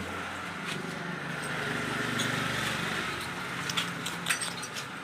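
A motor vehicle's engine passes by, swelling to a peak about two seconds in and then fading. In the second half come a few sharp clinks, from bottles and broken glass being handled on the floor.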